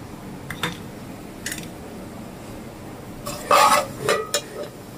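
Steel spoon knocking and scraping against a metal cooking pot while stirring cumin and nigella seeds in hot oil: a couple of light taps, then a louder, ringing clatter about three and a half seconds in.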